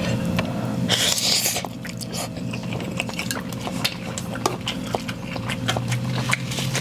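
Close-up eating of instant ramen noodles: many short wet mouth clicks and chewing, with a brief hissing slurp about a second in, over a steady low hum.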